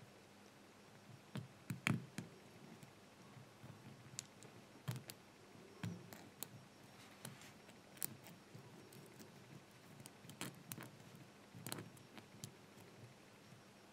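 Small metallic clicks and ticks of a lock pick working the pins of a brass pin-tumbler padlock under tension, irregular and a few seconds apart, with a louder cluster about two seconds in. The pins are suspected to be serrated.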